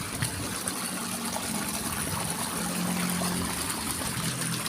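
River water running and trickling, with a faint steady low hum underneath.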